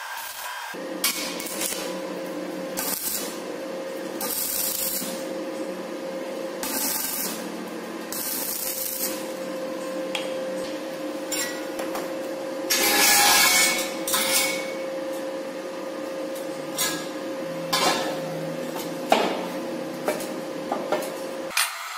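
Stick (arc) welding on steel square tubing: short crackling bursts as the electrode arc is struck and burns, the longest about halfway through, over a steady hum.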